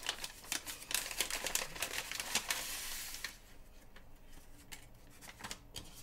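Brown kraft paper packaging being unfolded and pulled open by hand: crackly paper rustling for about three seconds, then quieter handling with a few light clicks near the end.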